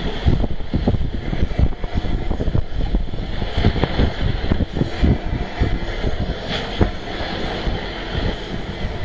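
Ballast tamping machine working the track: its diesel engine runs steadily under irregular clunks and knocks. Wind buffets the microphone.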